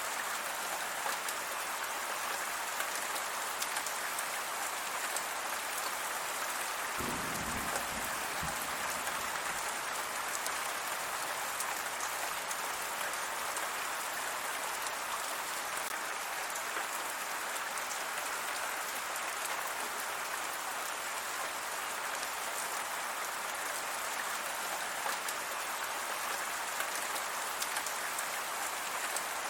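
Steady rain falling, an even hiss of many drops hitting a surface, with a brief low rumble about seven seconds in.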